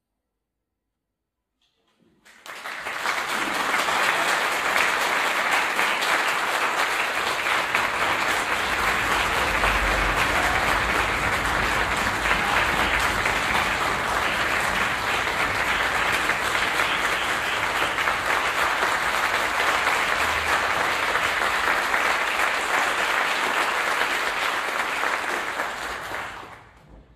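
Silence for about two seconds, then an audience applauding, a dense, steady clapping that fades out near the end.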